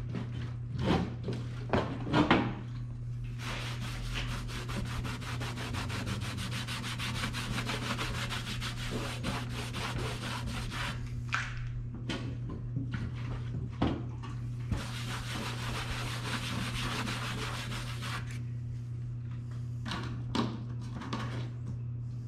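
Hands rubbing and scraping at the plasma cutter's metal case, with a few light knocks near the start. Then come two long stretches of dense, crackly scraping, one of about seven seconds and a shorter one of about three.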